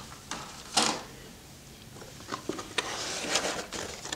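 Handling noise: a short swish about a second in, then small clicks and light rustling as hands take hold of a folded plastic quadcopter drone in its soft carrying case.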